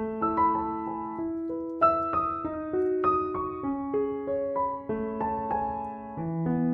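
Background piano music: a gentle melody of single notes played one after another.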